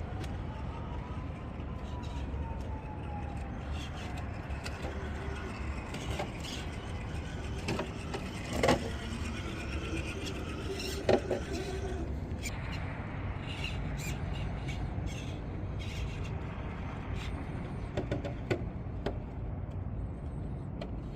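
Radio-controlled rock crawler driving over rough ground: a faint electric motor whine rises and falls, with scattered clicks and two sharp knocks from the chassis and tyres on rocks, over steady low rumble.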